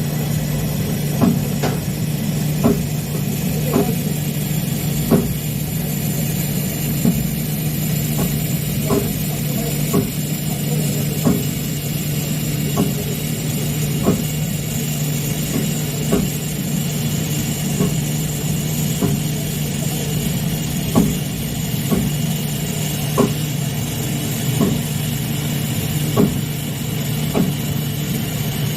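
TIG (argon) welding on pipe: a steady hum with faint high whine throughout, and a light tick roughly every second or so.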